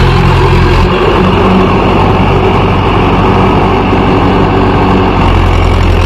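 Mahindra 415 DI tractor's four-cylinder diesel engine running steadily under load while pulling a spring-tine cultivator through the soil; the engine note shifts about a second in.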